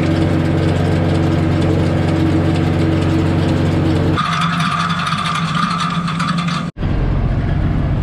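John Deere 2950 tractor's six-cylinder diesel engine running steadily under load while pulling a hay rake. Its sound changes about four seconds in and cuts out for an instant near seven seconds, then carries on.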